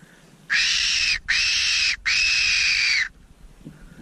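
Hand-blown fox whistle sounding three loud, squealing calls, the last one longest, blown to call foxes in.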